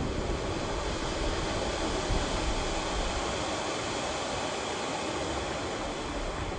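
Steady rushing hiss of water from a large dancing fountain's jets and spray, even and without pauses.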